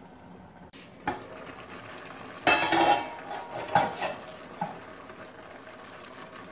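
A metal lid and steel ladle are taken off an aluminium cooking pot, with a loud ringing metal clatter about two and a half seconds in and another clank near four seconds. The ladle then scrapes and stirs the thick boiled mahua flowers and jaggery syrup, over a steady low hiss from the pot simmering on a low flame.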